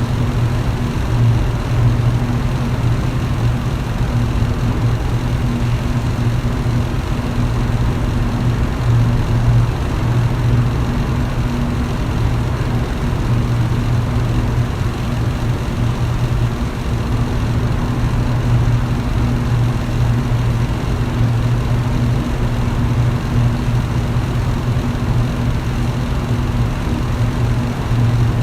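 Electric fan running steadily: a constant low motor hum under the even rush of air from the blades.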